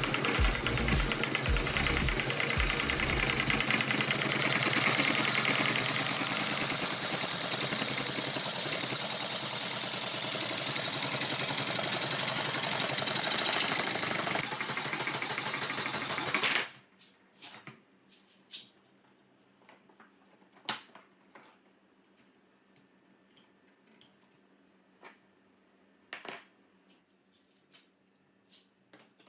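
Power tool running loud and steady, cutting off suddenly about 16 seconds in, followed by faint scattered clicks and taps.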